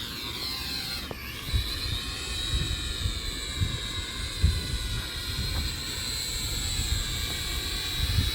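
Small toy drone's propellers whining in flight. The pitch dips about a second in, then rises and holds steady as it is flown.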